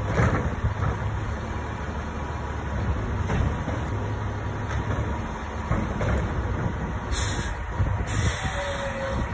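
Rear-loader garbage truck's diesel engine idling, with a few short knocks and air hissing twice near the end as the air brakes let off.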